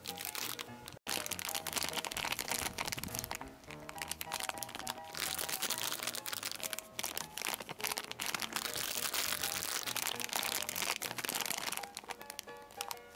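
Plastic candy packaging crinkling and crackling as it is handled and opened, over background music with a light repeating melody.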